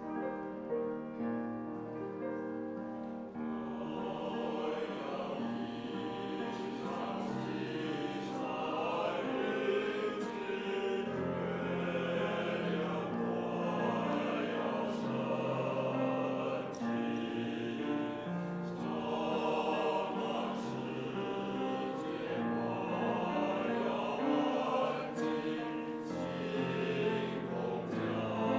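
Male choir singing with grand piano accompaniment. The piano plays alone at first, and the voices come in about three and a half seconds in.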